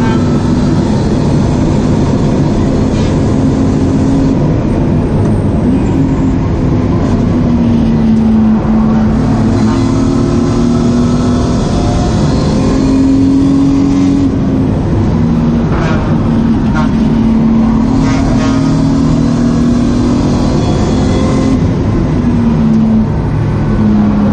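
BMW E36 328i's 2.8-litre straight-six engine driven hard, heard from inside the stripped-out cabin. Its note climbs and drops again and again as the car is revved and shifted.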